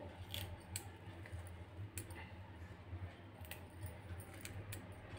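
Irregular small snaps and clicks as fresh coriander stems are trimmed and the leaves picked off, over a low steady hum.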